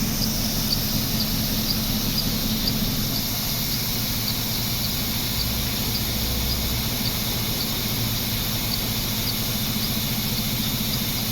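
Mercedes M119 V8 idling steadily at low revs with a misfire, and a faint high chirp repeating a little over twice a second from the accessory drive, which the owner puts down to a pulley making funny sounds.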